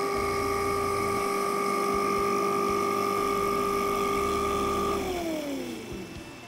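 Nova Voyager DVR drill press's direct-drive motor running with a steady whine while the bit is fed into a wooden block. About five seconds in, the motor cuts off and the whine falls in pitch as the spindle spins down: the press stopping itself at the preset 3/4 inch depth.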